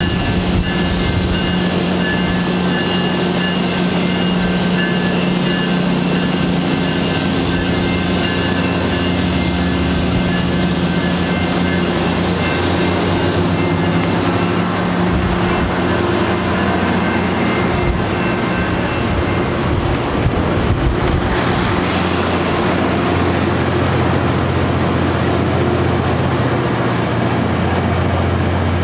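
Metrolink commuter train of bi-level passenger coaches rolling past, a steady rumble of wheels on rail with a constant hum, joined by faint regular ticks about twice a second in the second half.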